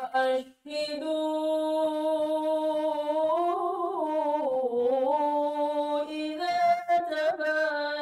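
A woman chanting Qur'an recitation in the melodic tilawah style. After a brief break she holds one long drawn-out phrase, its pitch rising and falling in ornaments midway, and it ends near the end.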